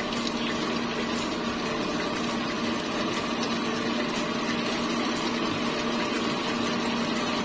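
Steady mechanical hum from a kitchen appliance motor, with sweet-and-sour sauce simmering in the pan and faint small ticks over it.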